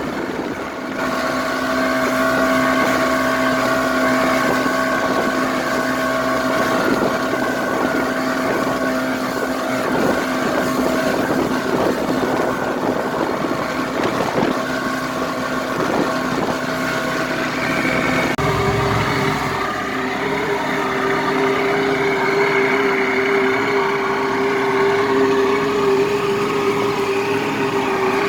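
Jet-ski engine in a 1992 Sea Ray boat running steadily while the boat is underway, with rushing wind noise on the microphone. About two-thirds of the way through, the engine note shifts to a different steady pitch.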